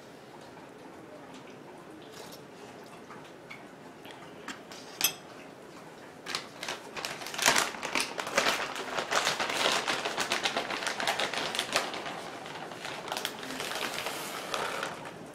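A plastic bag of shredded cheese crinkling and rustling as it is handled and opened, in two stretches of dense, irregular crackling. These follow a single sharp metallic clink about five seconds in.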